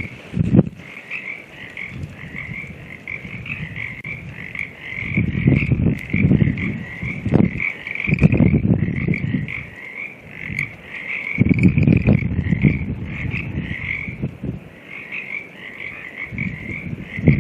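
A chorus of frogs calling in fast pulsed trills without a break, while gusts of wind buffet the microphone in several loud low swells.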